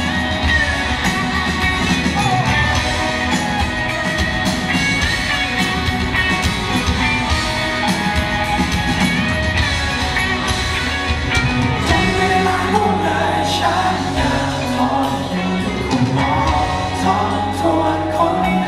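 A live rock band playing, with a lead singer's voice over the instruments.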